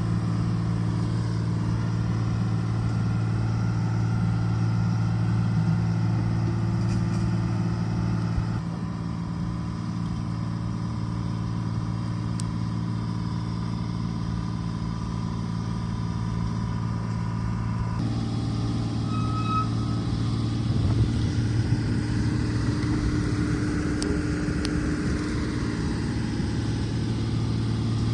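Heavy diesel engine running steadily. Its level drops about eight seconds in, and its tone shifts again at about eighteen seconds, as the load or throttle changes.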